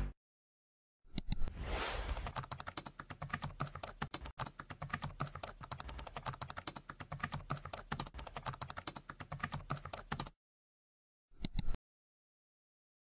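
Computer keyboard typing, a rapid run of key clicks lasting about nine seconds that stops abruptly. About a second later comes a short click, as of a mouse button.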